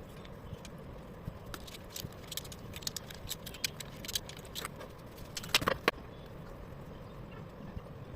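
Light metallic clicks and clinks of tools and engine parts being handled, with two louder clinks about five and a half seconds in.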